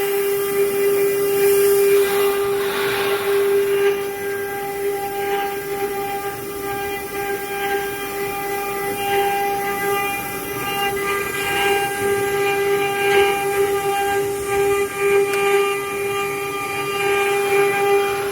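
CNC router spindle running with a steady high whine, with rougher cutting noise rising and falling over it.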